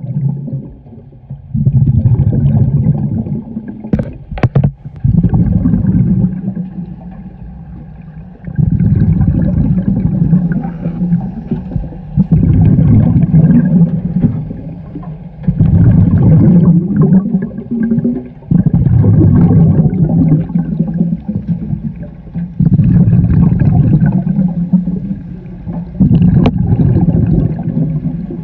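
Scuba diver's breathing heard underwater: loud, low bubbling of exhaled air from the regulator in stretches of a few seconds, with quieter breaks between breaths. Sharp knocks about four seconds in and again near the end.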